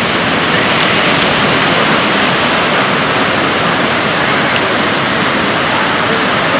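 Ocean surf breaking and washing over the rocks, a loud, steady wash of noise.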